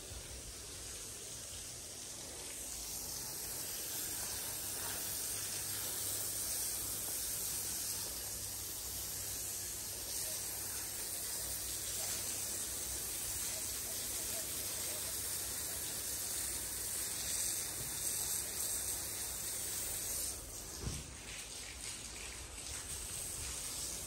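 Steady outdoor hiss of an approaching storm, with a low rumble underneath.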